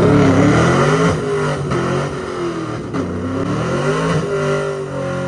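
A car engine revving, its pitch rising and falling several times over a steady hiss.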